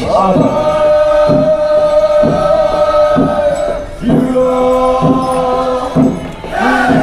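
A group of Naga men chanting together in traditional song, holding long drawn-out notes that break off about four seconds in and start again. A regular beat sounds about once a second beneath the chant.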